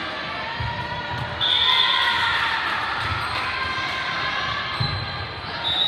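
Indoor volleyball match echoing in a large gym: thuds of the ball and players' feet on the hardwood court, a couple of short high-pitched squeaks, and voices of players and spectators.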